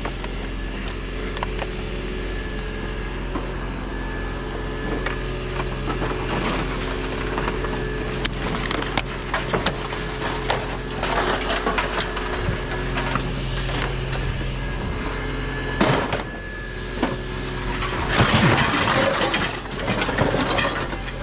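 Steady engine hum of an idling vehicle, with irregular clatter, knocks and scraping of scrap items being handled and worked apart; the loudest scraping comes about three quarters of the way in.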